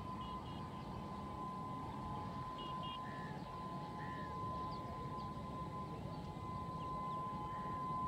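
A distant train horn held in one long, steady, single-pitched note. Short high chirps and a low rumble sit beneath it.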